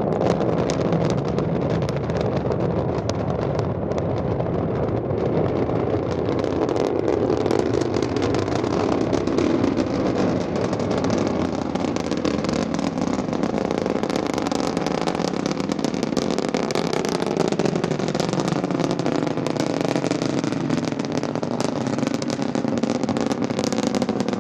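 SpaceX Falcon 9 first stage's nine Merlin 1D engines during ascent: a steady, loud, crackling rumble, its pitch sinking slowly about two-thirds of the way through.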